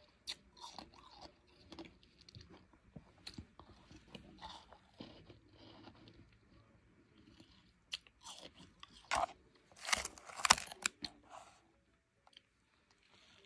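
Close-up crunching and chewing of soft, blender-crushed ice in the mouth: bursts of fine crackly crunches, densest and loudest about nine to eleven seconds in, then a near-silent pause.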